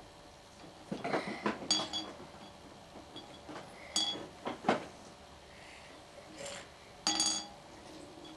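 Chess pieces clinking and rattling against each other and the sides of a bowl as a hand rummages through them, in three short bouts of clicks with a brief ringing.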